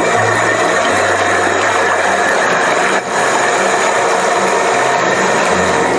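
Water faucet running, a steady rush of water with a loud humming vibration on top: the resonance noise of the faucet's valve cartridge that a silent cartridge is meant to cure. It dips briefly about halfway through.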